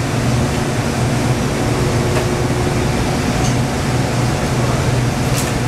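Steady, loud machinery hum with a strong low droning tone, with a few faint knocks of luggage being handled.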